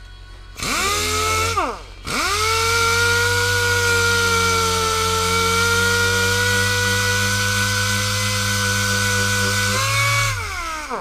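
A handheld power tool starts up and runs for about a second, then winds down. It starts again about two seconds in and runs at a steady pitch for about eight seconds, then winds down near the end.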